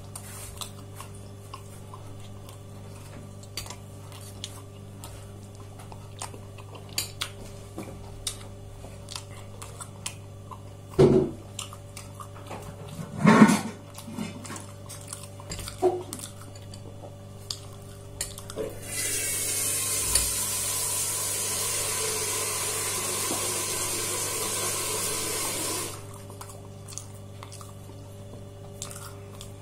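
Scattered clinks of a spoon and dishes during a meal, with two louder knocks near the middle. About two-thirds of the way in, a water tap runs steadily for about seven seconds, then is shut off suddenly.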